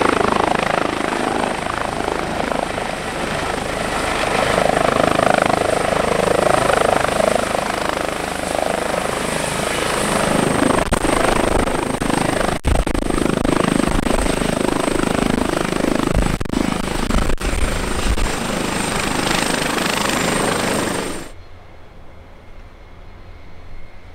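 Airbus H145 helicopter running close by, its rotor chopping and its turbines giving a steady high whine, first hovering low and then turning on the ground. About 21 s in, the sound drops suddenly to a much quieter drone of a distant turboprop aircraft.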